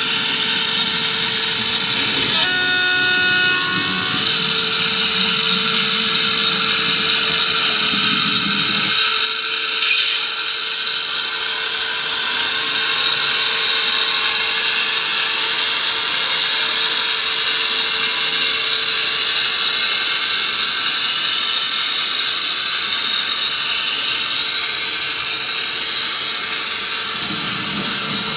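H0 model train running, its motor and sound-decoder running sound steady throughout, with a short horn blast about two seconds in. A low rumble stops about nine seconds in, and there is a sharp click about a second later.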